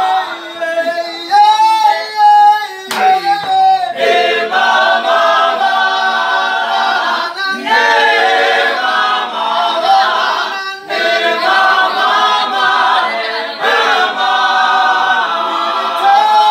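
A men's a cappella group singing in harmony without instruments, several voices holding and sliding between sustained notes.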